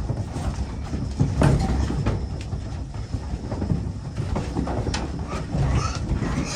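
Clattering and knocking as goats are pushed around a livestock pen, hooves and bodies bumping against metal panels, over a steady low rumble.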